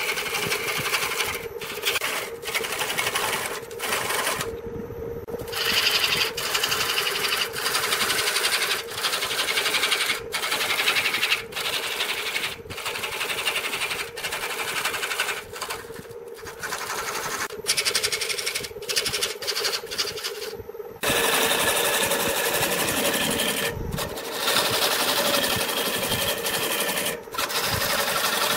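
Wooden blank spinning on a homemade electric wood lathe while a turning tool cuts into it: a dense, rapid chatter of the tool on the wood over the steady hum of the motor. The cutting breaks off briefly a few times.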